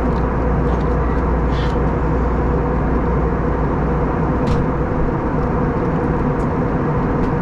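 Steady in-cabin drone of an Airbus A321neo in the climb: engine and rushing airflow noise from inside the cabin, an even hiss with a steady low hum of several tones beneath it.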